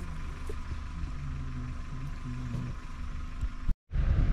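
Safari vehicle's engine idling with a steady low hum. Near the end the sound cuts out completely for a moment, then comes back louder.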